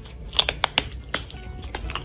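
Cats crunching dry kibble: a string of sharp, irregular crunches, several close together about half a second in and more near the end, over background music.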